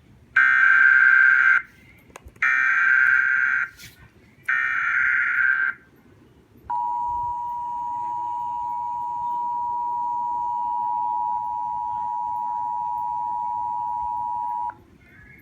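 Emergency Alert System tones: three screeching bursts of SAME digital header data, each about a second long, then the steady two-tone attention signal (853 and 960 Hz) held for about eight seconds. Together they open a Severe Thunderstorm Warning alert.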